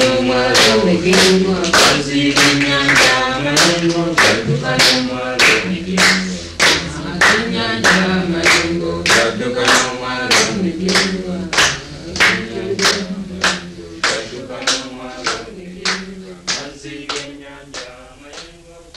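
A group of voices singing together over a steady rhythm of handclaps. The song fades out over the last few seconds.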